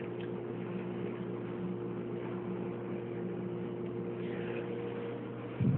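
Steady mechanical hum of a running appliance, carrying a few steady tones; one of the tones drops out near the end.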